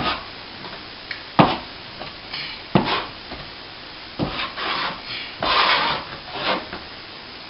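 Plastering trowel or scraper working compound on a plasterboard wall: a series of short knocks and rasping scrapes, the first few about a second and a half apart, then longer scraping strokes in the second half.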